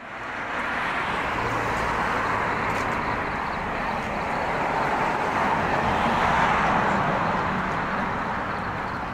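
Road traffic on a city street: a car driving past, its tyre and engine noise growing to a peak about six seconds in and then fading.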